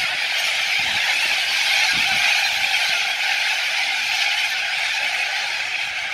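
A large flock of white cockatoos calling in flight, a steady, dense din of many overlapping screeches.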